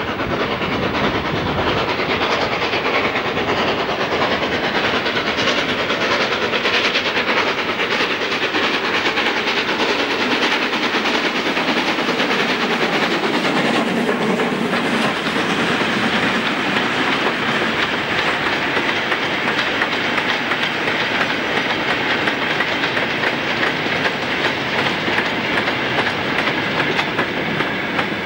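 LNER V2 class steam locomotive No. 4771 working past at close range with a goods train, followed by the wagons running by with a clickety-clack over the rail joints.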